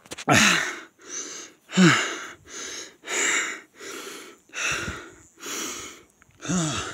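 A man panting hard after running uphill, about ten heavy breaths at roughly one and a half a second, the first two with a falling voiced 'hah'.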